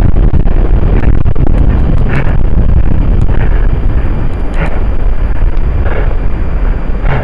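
Blizzard wind buffeting the microphone in a loud, rumbling roar, with footsteps crunching through snow about once every second and a bit.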